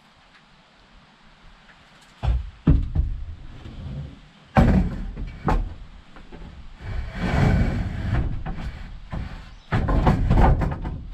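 Wooden boards knocking and thudding as they are handled and laid into a bed frame. A few sharp knocks come about two to five seconds in, then longer stretches of clatter and scraping.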